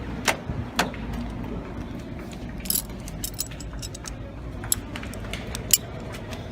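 Small metal parts clinking and clicking by hand, irregularly, as the hook and adjustment nut are worked off the end of a Porsche 914 clutch cable.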